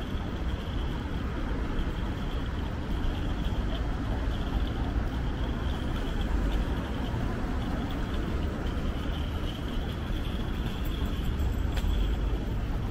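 City street ambience: a steady rumble of road traffic, with a faint high-pitched hiss running through it.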